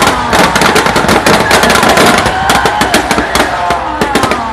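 Firecrackers packed into a burning Ravan effigy going off in a rapid, unbroken string of bangs and crackles, several a second.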